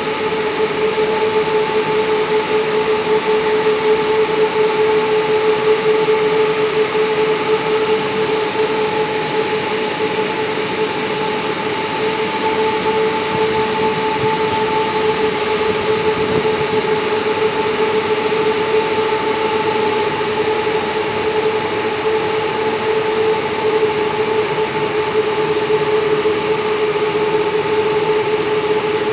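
Steady running noise of industrial machinery: a broad even hiss with a constant mid-pitched hum and a fainter one an octave above, unchanging throughout.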